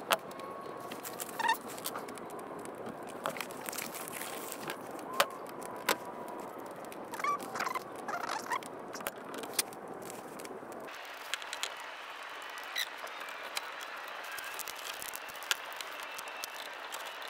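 Scattered clicks and light taps of small chainsaw parts being handled and fitted, over a steady hiss. A few short chirping squeaks come about seven to eight seconds in.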